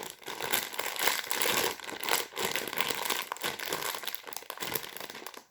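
Kinetic sand being pressed and rolled by hand in its plastic tray: a close, steady crinkly rustle made of many small crackles.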